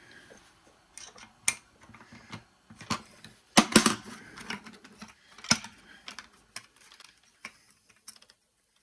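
Irregular small clicks and knocks of hands refitting the disc on an angle grinder that is not running, with a louder cluster of rattling knocks about halfway through and a sharp knock soon after.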